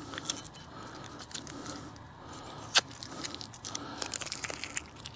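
Paper being peeled and torn off by hand, crinkling and crackling, with scattered small clicks and one sharper click about halfway through.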